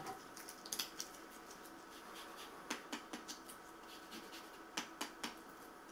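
Faint, scattered light clicks and taps of hands handling strawberry tarts on a serving plate, over a steady faint hum.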